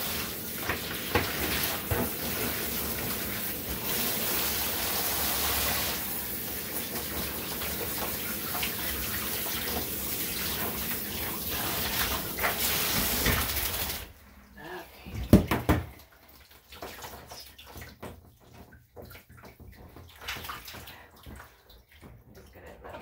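Handheld shower sprayer running steadily, water spraying onto a dog's wet coat and into the bathtub, until it is shut off about fourteen seconds in. Then a single loud knock and a few quieter small knocks.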